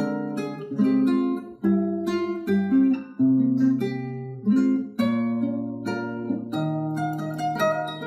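Background music: acoustic guitar, plucked and strummed chords with a bass line.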